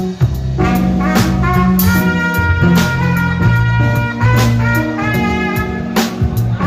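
Live jazz combo: a trumpet plays a melody of held notes over keyboard with a low bass line and a drum kit keeping time.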